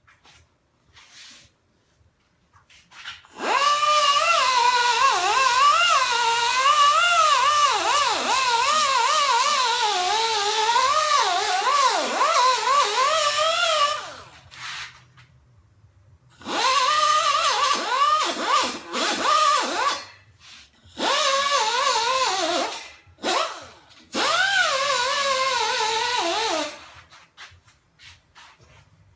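Angle grinder grinding the steel frame tube, its motor pitch sagging and recovering under load with a harsh hiss of abrasive on metal. One long run of about ten seconds, then three shorter runs with brief pauses between.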